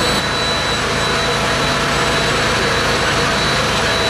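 Fire-rescue machinery running steadily at the scene: an even, loud engine noise with a low hum and a thin, steady high whine over it.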